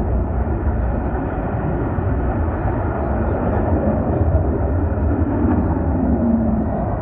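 F-35 fighter jet's F135 turbofan engine heard in flight: a steady, loud jet rumble, heaviest in the low end, that holds without a clear rise or fall.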